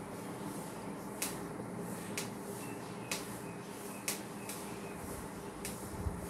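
Marker writing on a whiteboard: a handful of short, sharp taps and strokes, about one a second, over a steady room hum.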